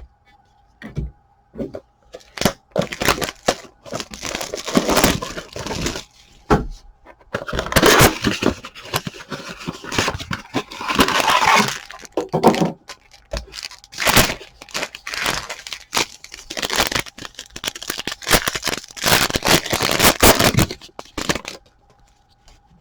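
Plastic wrap and foil trading-card pack wrappers being torn open and crinkled, with the cardboard of a blaster box being opened. The sound comes in irregular clusters of crackling and ripping, stopping about a second before the end.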